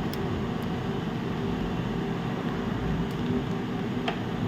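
Steady hum and hiss of bench or room machinery, with a few faint light clicks while a laptop keyboard's ribbon cable is being handled and connected to the motherboard.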